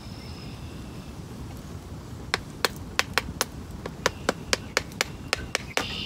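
Sharp wooden knocks of a knife working a small stick, about a dozen over three and a half seconds, starting about two seconds in.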